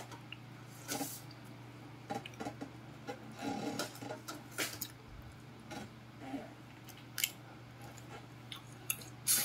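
Fresh longans being handled: scattered short crackles and snaps, a second or more apart, as fruit is pulled off the stems and the thin, brittle shells are cracked open. A low steady hum sits underneath.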